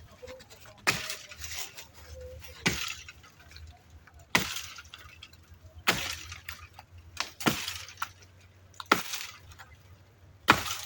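Repeated sharp chopping strikes, seven in all, about one every one and a half seconds.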